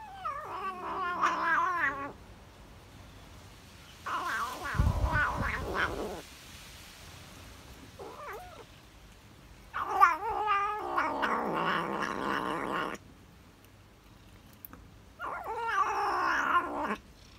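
Tabby cat vocalizing while eating cheese: four long calls of two to three seconds each that waver in pitch, and one short call, with pauses between them.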